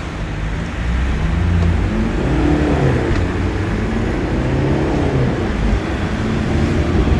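Caterham Seven engine revving as the car pulls away, its pitch rising and falling several times, with street traffic behind.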